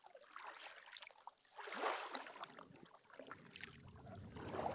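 Double-bladed kayak paddle stroking through the water, with faint splashing and dripping from the blades; the loudest splash comes about two seconds in.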